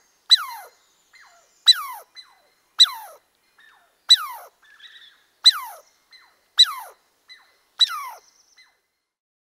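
Palm squirrel's repeated chirping alarm call: seven sharp, high chirps, each falling quickly in pitch, about one every second and a bit.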